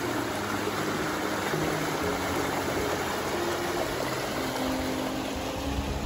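Small rocky stream rushing steadily over a low cascade of boulders.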